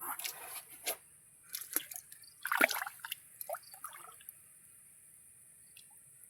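Water splashing and dripping in a run of short bursts, loudest about two and a half seconds in, dying away after about four seconds.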